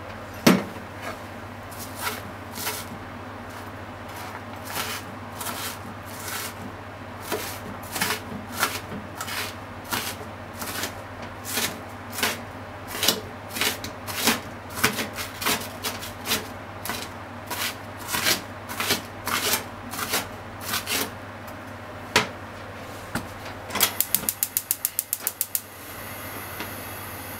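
A non-stick frying pan heating with a little oil on a gas stove, giving irregular sharp pops and ticks about once or twice a second. Near the end comes a fast run of clicks, about eight a second for two seconds, followed by a faint high hiss.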